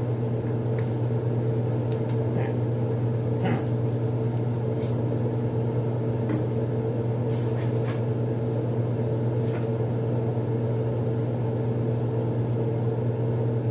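Steady hum of a kitchen appliance motor, a low tone with several higher tones above it, with a few faint clicks and knocks.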